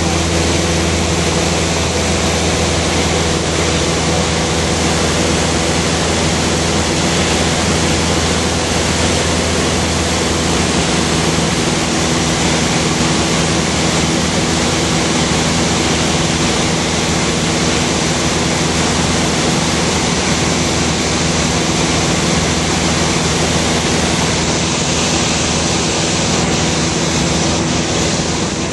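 Light aircraft's piston engine and propeller running at a steady cruise, heard inside the cabin as an even hum of low tones under a loud rush of air.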